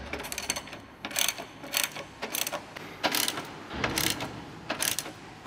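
Hand ratchet clicking in short runs of back-strokes, with brief pauses, as it snugs up the bolts of a rear IRS subframe brace.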